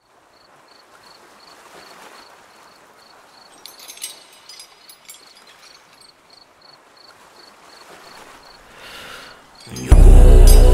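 A quiet outdoor-nature ambience opens the track: a high insect-like chirp pulses steadily about three times a second, with a spell of crackling and rustling about four seconds in. Near the end, loud, dark droning music with deep bass comes in suddenly.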